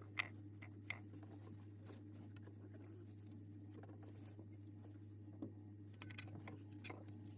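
Faint scattered clicks and taps of small parts being handled, over a steady low hum.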